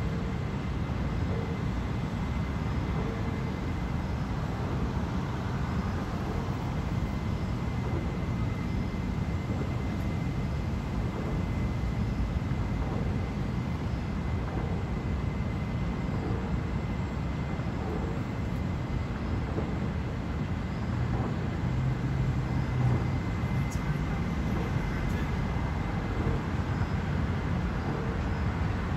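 Steady low rumble of city traffic, with a faint steady high tone throughout. A deeper engine hum swells briefly about three-quarters of the way through.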